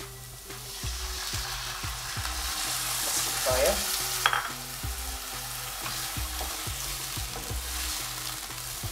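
Water poured from a bowl into a hot pan of sautéed diced vegetables, hissing and sizzling as it hits, with the sizzle swelling over the first few seconds, then a wooden spoon stirring the vegetables in the liquid. A single sharp knock about four seconds in.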